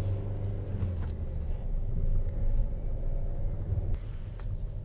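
Car engine and road noise heard from inside the cabin while driving: a low steady hum that eases off about a second and a half in.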